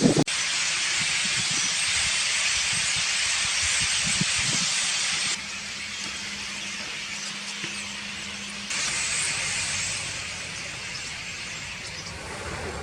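A huge flock of starlings calling all at once, thousands of high chirps and squeaks blending into a dense, hiss-like chatter. The sound drops abruptly about five seconds in and comes back up near nine seconds.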